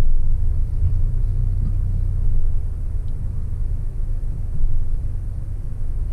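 Fiat 500's 1.2-litre four-cylinder petrol engine running at low revs, heard from inside the small car's cabin as a steady low rumble while the car creeps along at parking speed.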